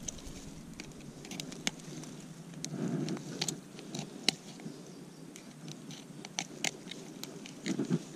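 Irregular sharp clicks and rustling from handling a snakehead in a landing net as metal pliers work the hook out of its mouth. The rustling swells twice, about three seconds in and near the end.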